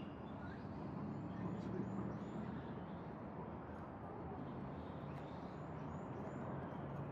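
Steady outdoor background rumble, with faint high bird chirps now and then.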